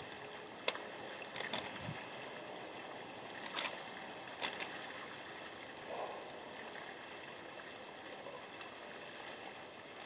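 Steady hiss from an outdoor camera's microphone, with a few scattered sharp clicks and a soft scrape as a black bear moves about and noses into a bird bath.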